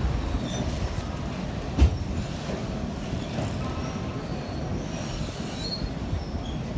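Passenger train running on the rails, heard from on board: a steady low rumble with one sharp knock about two seconds in and a few faint, short high squeaks.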